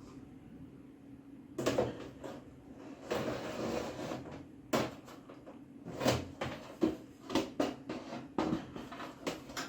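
Desktop computer case being handled during reassembly: a run of irregular knocks and clicks with a stretch of scraping, starting about a second and a half in.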